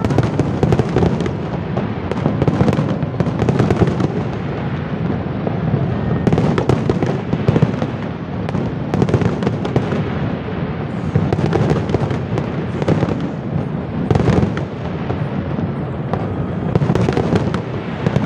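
Aerial fireworks display: a dense, continuous barrage of many overlapping shell bursts, with deep booms and sharp bangs following one another without a break.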